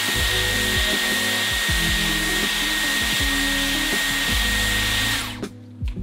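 Dyson Airwrap running with a curling barrel: a steady rush of air with a thin, high, steady whine, switched off about five seconds in. Acoustic guitar music plays underneath.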